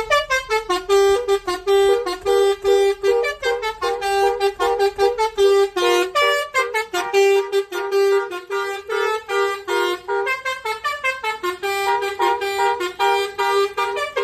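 Basuri 'telolet' multi-tone horn playing a quick melody, a string of short toots changing pitch over longer held notes.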